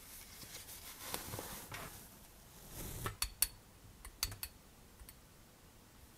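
Soft rustling of fabric handled in gloved hands, then a brief hiss and a few sharp clinks of a glass jar tapping against a stainless steel mesh strainer as fine powder is shaken out of it.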